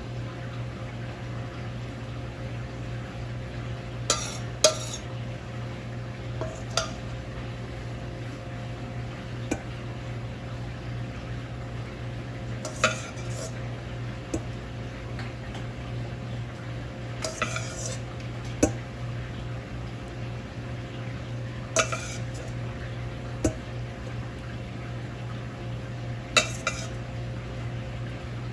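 Metal utensil clinking and scraping against a cooking pan and a plate as food is dished out, about a dozen separate clinks a few seconds apart over a steady low hum.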